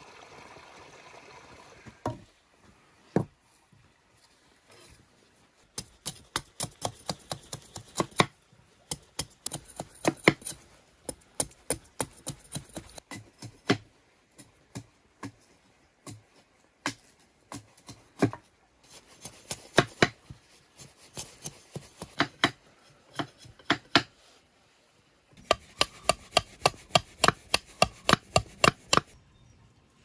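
Large knife chopping on a wooden board in quick runs of strokes, about four or five a second, with short pauses between the runs.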